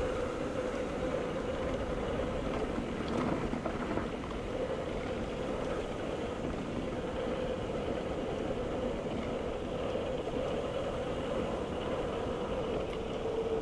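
Mountain bike rolling along a rough dirt trail: a constant rush of tyre and wind noise, with a steady mid-pitched whine over it and a few faint clicks.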